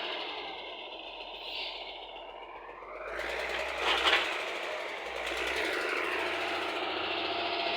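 Engine of heavy road-construction machinery running, growing louder about three seconds in and peaking around the four-second mark before settling back to a steady run.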